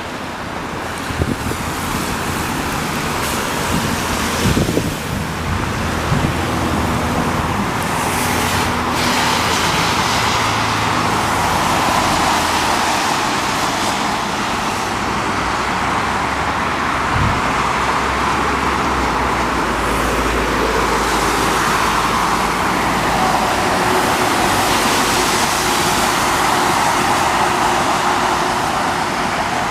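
Steady road noise of a car driving: tyre hiss with a low engine hum underneath.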